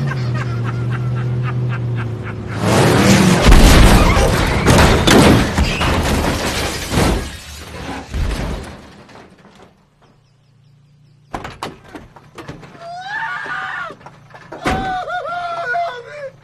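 A car engine runs hard at speed. About three seconds in, a violent car crash follows: a long burst of crunching metal, skidding and breaking as the cars spin off the road, dying away by about nine seconds. Near the end come scattered knocks and a few high, wavering cries.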